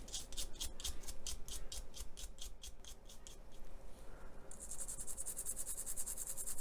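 Paint being scratched and scrubbed off a plastic model part with a small tool to chip it. The scraping comes in quick, even strokes, about six a second, for the first three seconds. From about halfway through it turns into a faster, steady, higher-pitched scrubbing.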